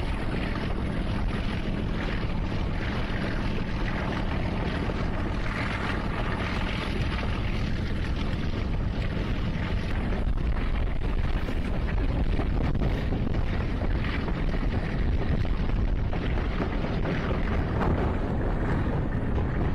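Wind buffeting the microphone over the steady rumble of a moving passenger train, heard from an open coach doorway.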